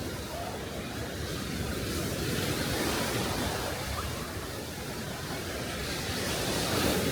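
Sea waves washing onto the shore, swelling about two and a half seconds in and again near the end.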